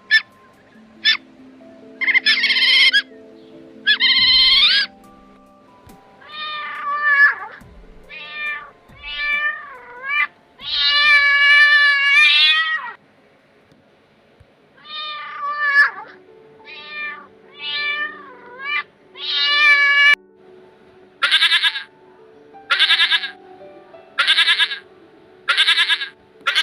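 A series of pitched animal calls, some short and some drawn out and bending in pitch, over background music with sustained notes. Near the end come five short calls at even spacing.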